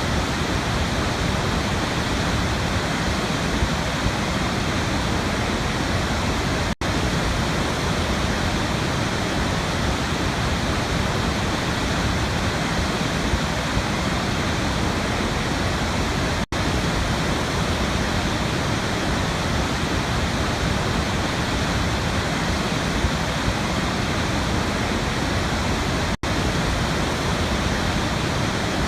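Waterfall rushing steadily, a dense, even roar of falling water with three very brief dropouts about ten seconds apart.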